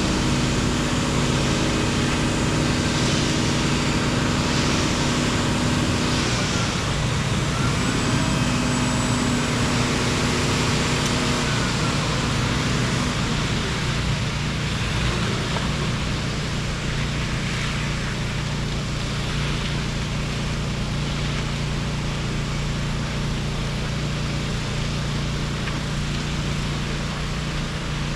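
An engine running steadily, its tone shifting about six seconds in.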